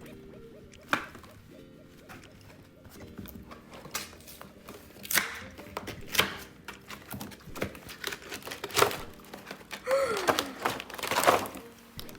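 Toy packaging being handled and pulled open by hand: scattered thunks and taps with crinkling in between, loudest near the end, and a short falling squeak about ten seconds in.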